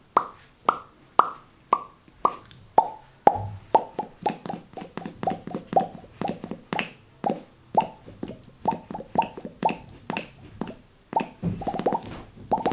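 Mouth-made bubble pops: a beatboxer imitating popping bubbles with his lips and finger, a run of separate pops about half a second apart that quicken into a rapid popping a few seconds in.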